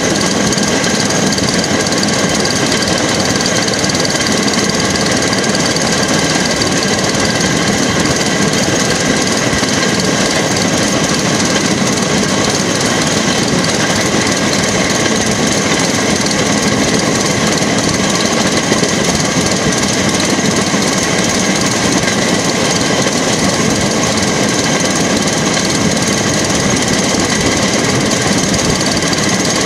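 Motorised railway track car (jigger) travelling along the line: its engine running steadily, with a constant rattle from the car on the rails.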